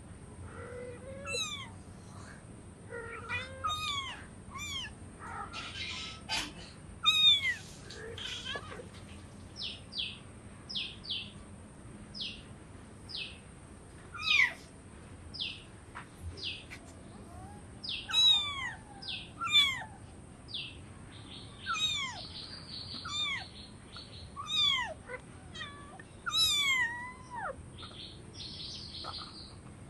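A calico kitten meowing over and over: high, falling mews, one every second or two, some of them loud. Short high chirps come between the mews.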